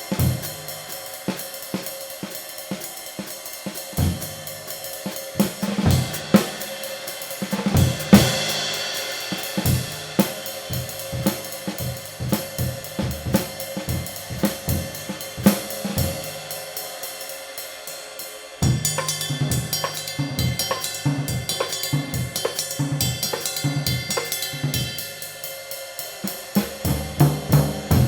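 Drum kit played in a steady groove with sticks, kick and snare under a 20-inch handmade B20 bronze medium ride cymbal ringing with a sustained wash. The texture changes abruptly about two-thirds of the way through.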